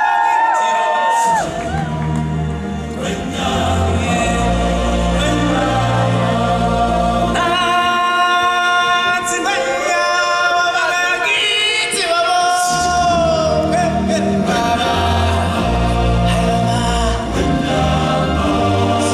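Live stage-show music: a choir and solo voices singing over a pulsing bass accompaniment played through the theatre's sound system. The bass comes in about a second in and drops out for a moment about two-thirds of the way through.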